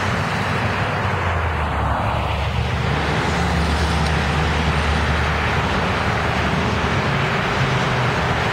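Diesel engine of an NJ Transit commuter coach bus passing close by, a low drone that swells as the bus goes past and eases off after about seven seconds, over steady highway traffic and tyre noise.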